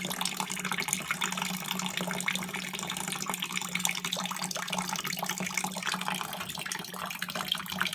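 Backed-up condensate water trickling and splashing out of a Carrier Infiniti 96 furnace's condensate trap where a hose has been pulled off, the sign of a plugged condensate trap. A steady low hum runs underneath.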